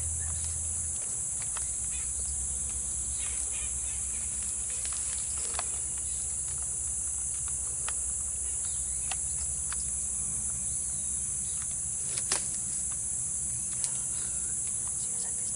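Steady high-pitched chorus of insects, with a few faint clicks and one sharper tick about twelve seconds in.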